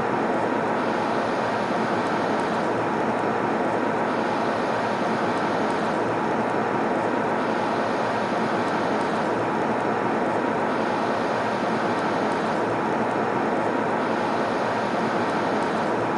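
Steady airliner cabin noise in flight: an even rush of engine and airflow noise heard from inside the cabin, with a faint steady hum and the upper hiss dipping slightly about every three seconds.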